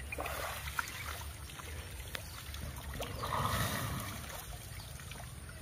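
An elephant wading in a river, splashing and sloshing water with its trunk, with water pouring back into the river as it lifts its trunk to its mouth. The loudest splash comes a little past the middle.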